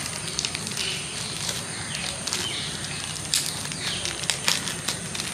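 Rustling and crinkling of plastic packaging being handled, with scattered small clicks and taps.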